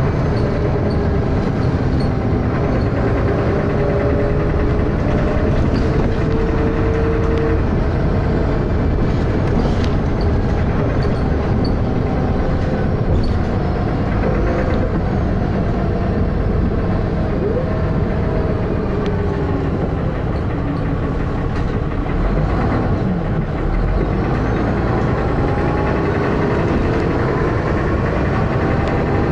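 Dennis Arrow double-decker bus running under way, heard from on board: a loud, continuous engine thrash and drivetrain rumble, with faint whines that rise and fall as the bus changes speed.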